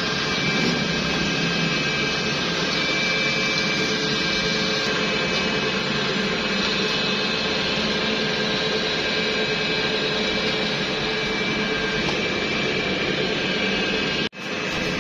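PVC conduit pipe extrusion line running, its chain-belt haul-off pulling the pipe: a steady machine drone with a few steady whining tones over it. The sound cuts out for a moment near the end.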